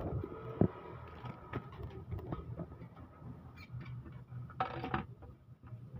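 Handling noises from working on an engine valve cover: scattered small knocks and clinks, with one sharp knock about half a second in and a short scraping sound near the end.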